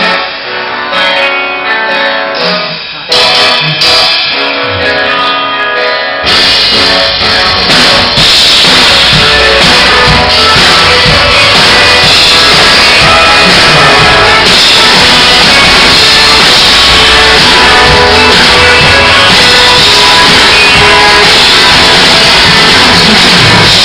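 Mandopop song: a sparse intro on keyboard and plucked guitar, then drums and the full band come in suddenly about six seconds in and play on loud and dense.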